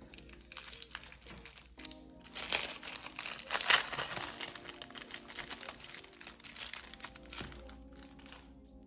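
Clear plastic wrapper on a pack of wooden ice cream sticks crinkling as it is handled and pulled open, in irregular crackles, loudest a little over a third of the way in. Soft background music plays underneath.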